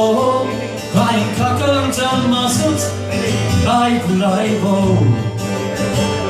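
Irish folk music played on button accordion and acoustic guitar.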